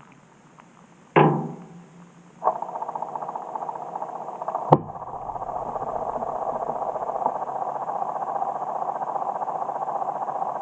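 2018 GE GTW220ACKWW top-loading washing machine heard from inside the drum: a short lull, then a single knock, and a second or so later a steady mechanical running sound starts and carries on, broken once by a sharp click.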